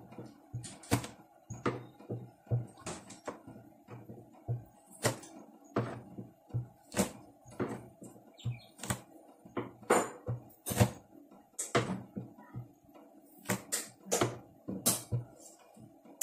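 Chef's knife knocking on a plastic cutting board in irregular sharp strikes, one or two a second, as peeled garlic cloves are crushed under the flat of the blade and chopped.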